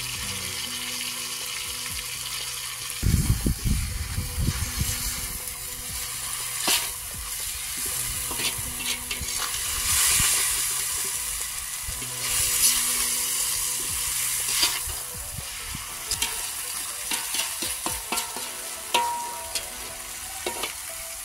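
Vegetables sizzling as they fry in a black metal wok, with a perforated metal skimmer scraping and clicking against the pan as they are stirred. A burst of low thumps about three seconds in.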